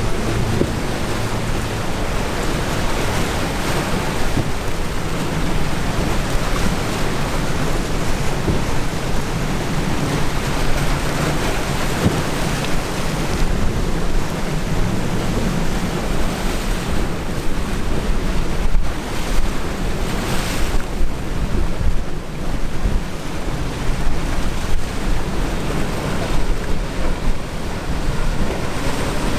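Wind buffeting the microphone over breaking surf in a rough inlet, with a steady low rumble of boat motors running beneath.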